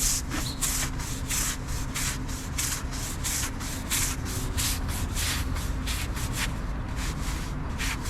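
Brush scrubbing a brick wall wet with acid, in quick back-and-forth strokes of about three a second, while acid-washing new brickwork; a steady low rumble sits underneath.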